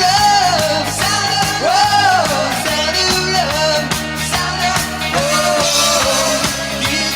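Rock and roll song playing, with a voice singing over electric guitar, bass and drums.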